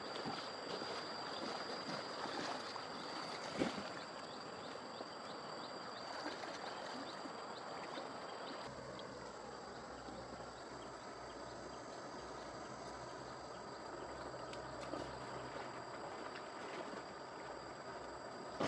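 River water flowing and splashing around a bamboo raft, with a single sharp knock about three and a half seconds in.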